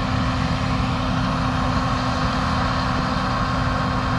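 Steady drone of a farm machine's diesel engine running at a constant speed, with a steady low hum and a higher whine that do not change.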